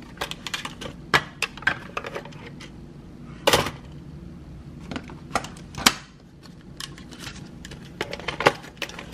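Plastic clicks and taps from handling a Nemonic thermal label printer: its lid popped open and the paper roll taken out of the compartment, with two louder clicks about three and a half and six seconds in.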